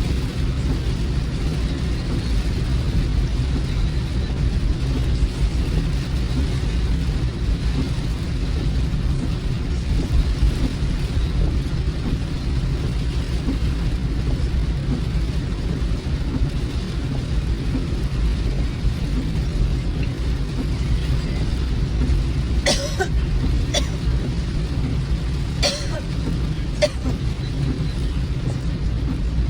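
Steady low road and engine rumble inside a moving car's cabin, with a soft hiss over it. Near the end come several sharp, irregular clicks or taps.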